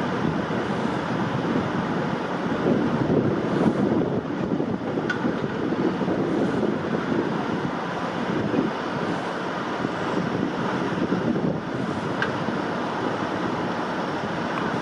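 Steady rushing noise with no distinct events, apart from two faint short ticks.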